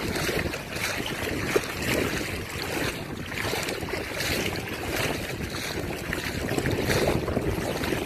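Shallow sea water swishing and splashing around the legs of someone wading, with wind buffeting the microphone. The water noise swells and eases about once a second.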